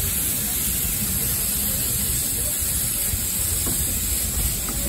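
Steady hiss of steam escaping from a standing narrow-gauge Hunslet quarry steam locomotive.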